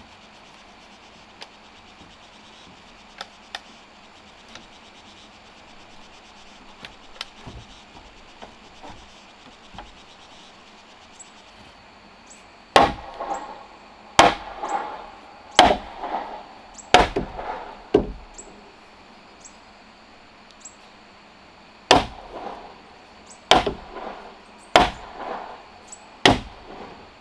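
Light knocks and creaks of wooden poles being climbed, then heavy blows striking wood with a short ringing after each, about one every second and a half: five in a row, a pause, then four more.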